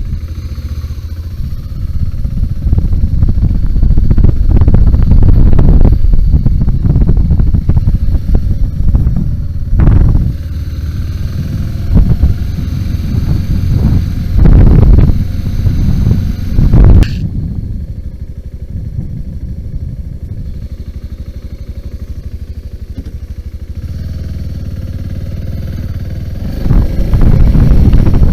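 BMW G 650 GS single-cylinder motorcycle engine running under way off-road, its level rising and falling with the throttle, with a few sharp loud bursts around the middle and a quieter spell after them before it picks up again near the end.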